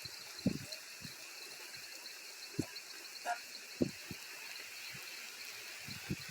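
Steady high-pitched chorus of frogs and insects over a hiss of rain, with a few short low frog croaks scattered through.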